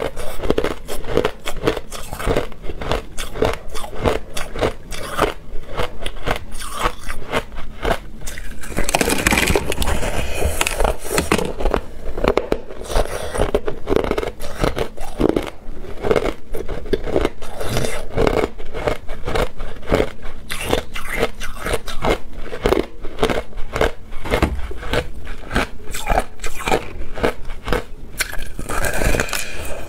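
Teeth biting and crunching through a block of crushed, pink-dyed ice: rapid crackling crunches, with a denser, louder stretch of crunching about nine seconds in.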